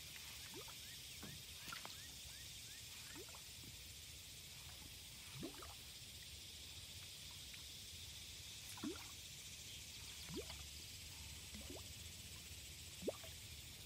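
Faint, scattered water plops and bloops, a few seconds apart, from a topwater fishing lure being twitched back across the water's surface, over a steady faint high hiss.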